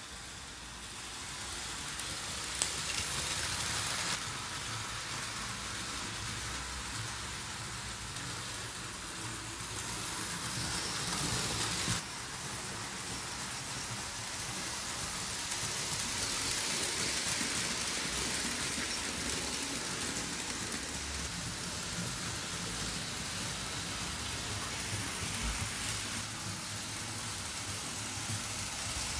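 Märklin BR 85 model steam locomotive and its coaches running on metal M-track: a steady rushing rattle of the wheels on the stamped-steel rails, with the motor's hum underneath.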